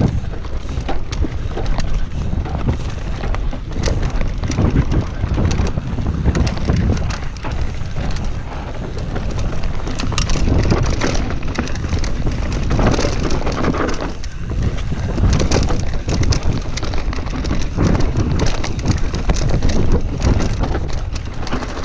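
Wind buffeting the camera microphone as a Commencal Meta V4 mountain bike descends a forest dirt trail, with the tyres running on dirt and frequent clatter and knocks from the bike over roots and ruts.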